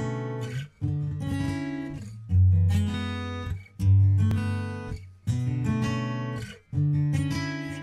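Background music: an acoustic guitar strumming chords, about one strum every second and a half, each chord left to ring and fade.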